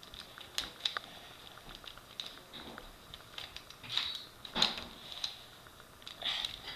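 Plastic 3x3 Rubik's Cube being turned quickly, its layers clicking and clacking at an irregular pace.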